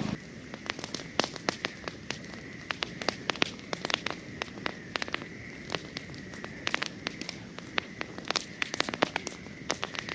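Wood bonfire crackling, with many sharp, irregular pops and snaps of burning wood over a low hiss. A faint steady high tone runs underneath.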